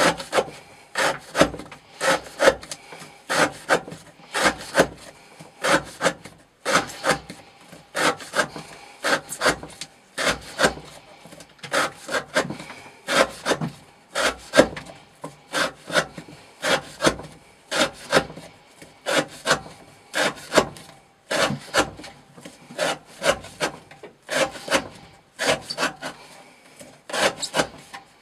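Knife blade slicing through rope on a cutting board, one short rasping cut after another, about one to two a second, as the edge is worked through a rope-cutting test of its edge retention.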